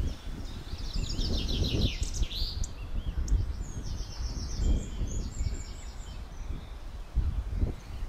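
Small birds singing in short phrases of fast, repeated high notes, once in the first two seconds and again around four seconds in, over a gusty low rumble of wind on the microphone.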